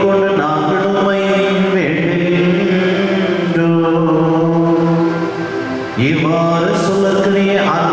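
A man's voice chanting a sung liturgical prayer through a microphone in long, held notes, pausing briefly just before six seconds in and then going on.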